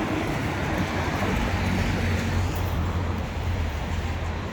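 Road traffic on a busy street: a steady rush of passing vehicles with a low engine hum, swelling as one passes about two seconds in and easing off near the end.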